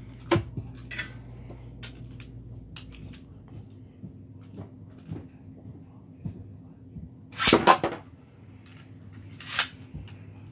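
Scattered plastic clicks of Beyblade launcher gear being handled, then a loud rattling ripcord pull launching a Beyblade into a plastic stadium about seven and a half seconds in, followed by a second short sharp rattle about two seconds later.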